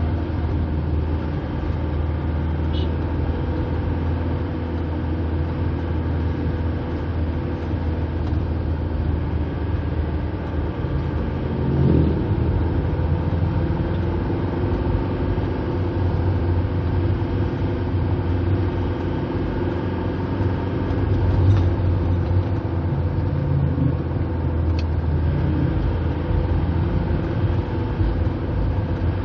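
Cabin sound of an Isuzu Panther driving along a road: a steady engine hum under tyre and road noise, with a brief louder bump about twelve seconds in.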